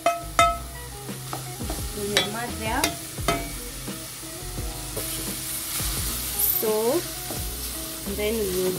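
Aluminium pot clanking as minced beef is tipped into it, then a wooden spoon stirring and scraping the mince around the pot while it sizzles on the heat.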